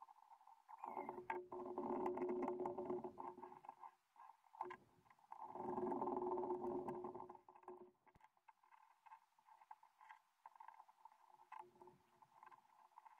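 Mini electric screwdriver driving screws into a 1:18 scale RC car chassis. It runs twice with a steady whir, first for about three seconds and then for about two, with light handling clicks in between.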